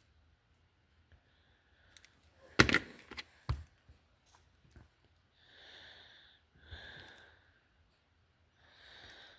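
A sharp knock about two and a half seconds in and a smaller one a second later, as small parts are handled at the workbench, then three slow breaths out, sigh-like.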